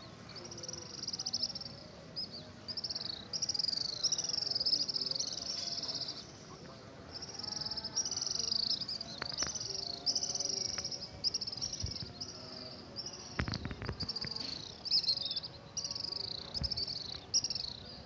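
Many small birds calling as they fly overhead: a near-continuous run of shrill, buzzy trills, each about half a second to a second long, following one after another. A brief low rumble comes about two-thirds of the way through.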